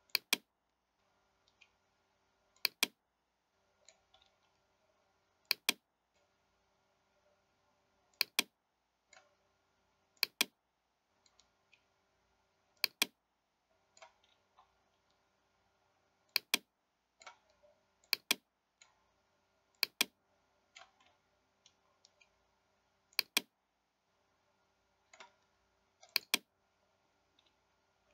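Computer mouse clicking, mostly in close pairs every two to three seconds with fainter clicks between, over a faint steady hum.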